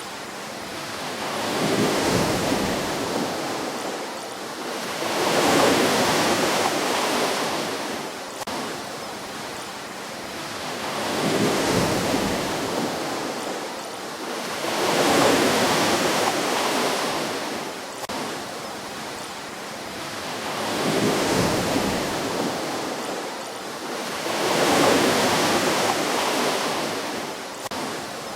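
Ocean waves breaking and washing up onto a shore, rising and falling in six slow swells a few seconds apart.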